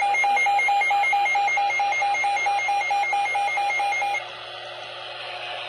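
Weather alert radio's alarm: a rapid pulsing beep, about five beeps a second, that cuts off about four seconds in and leaves quieter radio static. It signals an incoming severe thunderstorm warning.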